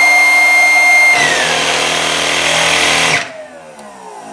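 12V two-stage inflatable air pump with its outlet blocked: the high-volume fan whines steadily, then about a second in the relays switch it over to the reciprocating piston pumps, which run loud with a low hum while the fan's whine falls away. A little after three seconds the piston pumps cut off suddenly as the pressure switch trips at its low setting, and the motors spin down with a falling whine.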